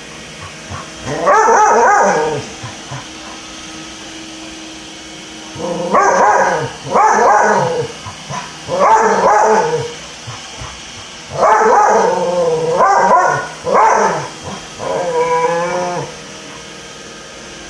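A dog giving a series of drawn-out, pitched barks and whines, about eight calls each under a second, bending up and down in pitch, in clusters with short gaps. A robot vacuum hums steadily underneath.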